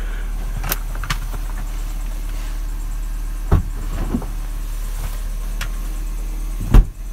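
Peugeot 308 CC idling steadily, with scattered knocks as someone moves about the car, and a car door shutting with a heavy thump near the end.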